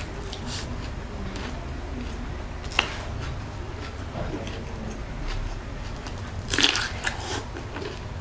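Biting and chewing of crispy fried lumpiang shanghai (Filipino spring rolls). A sharp crunch comes about three seconds in and a louder burst of crunching near the end, with scattered small crackles between.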